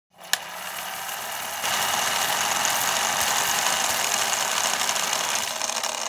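Car driving on a road, its engine and road noise as picked up from inside the car: a steady rushing noise that grows louder about a second and a half in, after a single click near the start.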